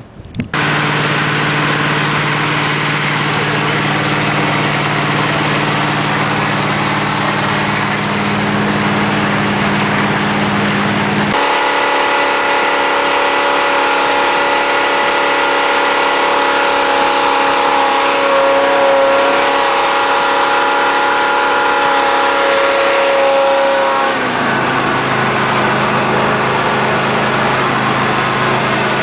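Ford 351 Windsor V8 of a jet boat running hard under way, loud and steady, with the rush of wind and water. Its sound changes abruptly about eleven seconds in to a higher whine, and changes again about five seconds before the end.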